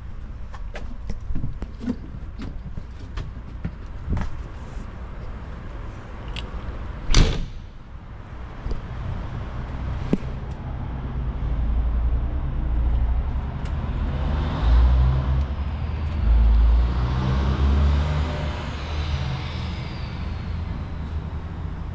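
Handling clicks and rattles, then a single loud bang about seven seconds in, like a heavy fire-engine door being shut. In the second half a low rumble builds, peaks and eases off.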